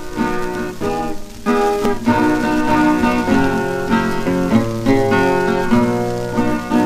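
Background music led by plucked acoustic guitar, with a steady run of picked notes over a bass line.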